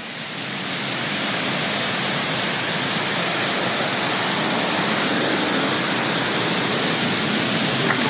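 Rushing water of a creek waterfall at a weir: a steady, dense hiss that swells over the first second and then holds even.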